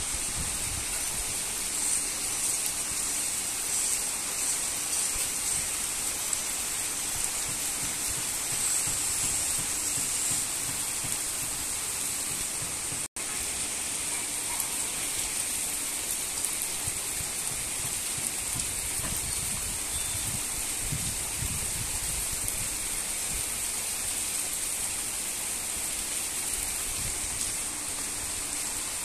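Heavy rain falling steadily as a constant hiss, broken for an instant about halfway through.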